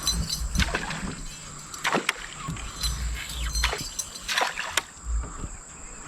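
Water splashing and sloshing against a small fishing boat, with scattered sharp knocks and bursts of deep rumble.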